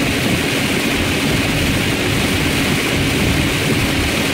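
Steady road noise inside a car cabin at about 60 mph in a heavy downpour: wet tyres hissing on the road and rain on the car's body.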